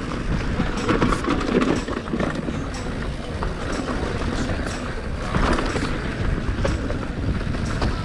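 Mountain bike running fast down a dirt singletrack: a steady low rumble of tyres on dirt and wind on the microphone, with frequent irregular clicks and rattles as the bike goes over bumps.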